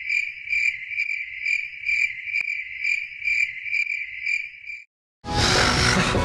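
Crickets chirping steadily, about two chirps a second: the stock sound effect for an awkward silence. The chirping stops a little before five seconds in, and after a short gap a loud noisy burst follows.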